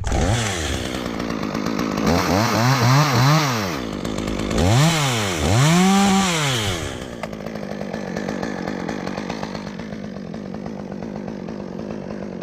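Chainsaw cutting a notch into a maple limb: it is revved up and down several times, then settles to a steadier, lower running speed for the rest of the time.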